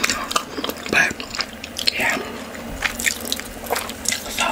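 Close-miked wet eating sounds: chewing and lip smacks in irregular clicks, with fingers pinching and squishing soft dough.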